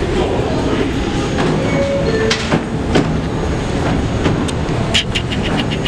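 New York City subway train standing at a station: a steady low rumble, with a quick run of sharp clicks near the end.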